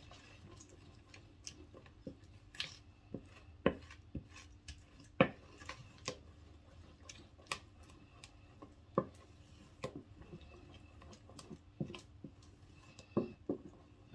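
Wooden spoon stirring runny pancake batter in a mixing bowl, knocking and scraping against the bowl's sides in irregular sharp taps, about two a second.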